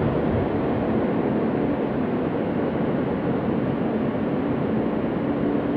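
Steady rumble and hiss inside a New York City subway car, with a faint low hum running under it.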